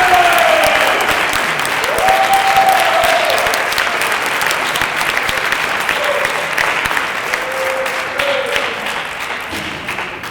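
Audience applauding, with a few cheering shouts over the clapping; the applause dies away near the end.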